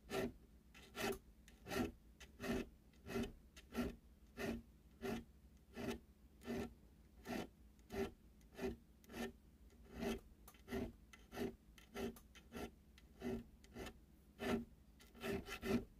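Half-moon needle file rasping on the spine of pocket-knife liners in short, even strokes, about one and a half a second, widening the notches of the decorative file work.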